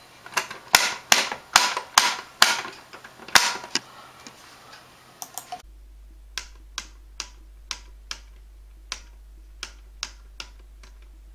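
Sharp clicks and taps of a finger on a small plastic button box, about ten in quick succession. About five and a half seconds in the sound cuts to the same kind of tapping picked up at a distance by an external PC microphone, softer and sparser over a faint low hum.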